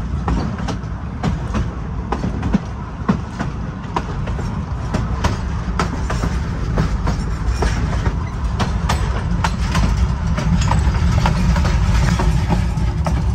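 Narrow-gauge passenger car rolling downgrade: a steady low rumble with the wheels clicking over the rail joints several times a second.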